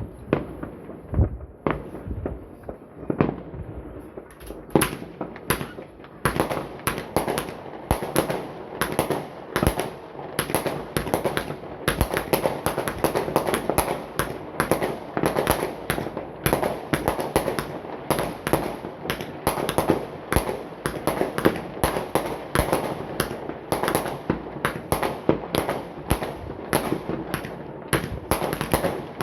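Consumer fireworks going off in many overlapping bangs and pops, scattered for the first few seconds and then thickening into a dense, nearly continuous crackle of rapid reports.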